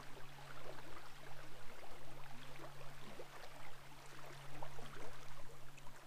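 River water trickling and lapping against a drifting kayak, in many small irregular splashes, over a steady low hum.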